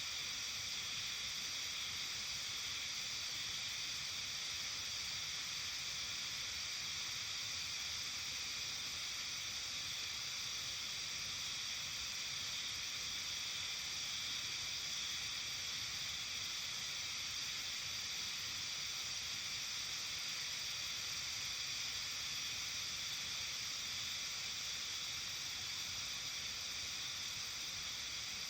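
Steady outdoor evening ambience of a Japanese mountain village in early summer: a dense, even, high-pitched hiss that never changes, with no separate calls or events standing out.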